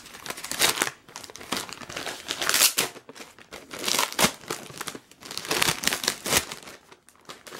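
Shiny silver-striped gift wrapping paper being torn and crumpled by hand, in a run of irregular rustling, ripping bursts with short pauses between.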